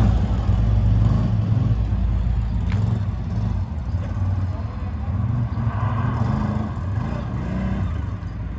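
Russian Mechanics RM 800 ATV engine running as the quad drives off, a low engine rumble growing fainter as it pulls away.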